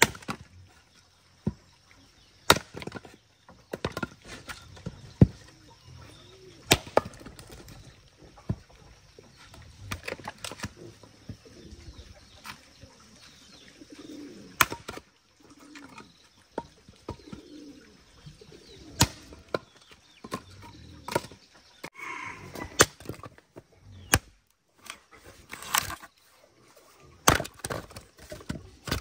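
A small hand axe chopping and splitting short lengths of firewood: sharp single chops of the blade into the wood, at irregular gaps of one to a few seconds, with split pieces knocking against the pile.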